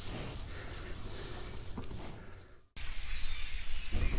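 Low rustling among cattle in hay, which cuts off abruptly and gives way to outdoor ambience with small birds chirping high and faint.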